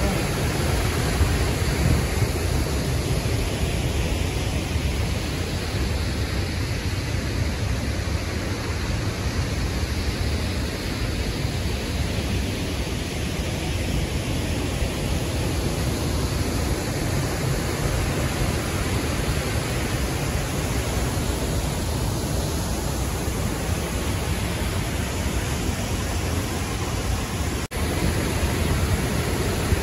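Steady rushing of the Athirappilly waterfall, a large waterfall pouring onto a rocky river, an even roar of water heaviest in the low range. It drops out for an instant about two seconds before the end.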